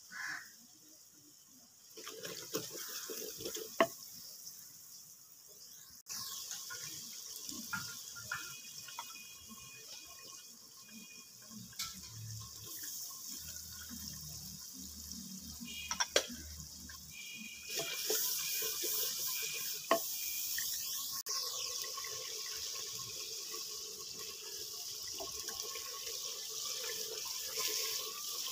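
Oil and masala sizzling in a clay pot over a wood fire as it is stirred with a wooden spoon, the sizzle growing louder about six seconds in and again past halfway. A few sharp knocks of the spoon against the pot stand out.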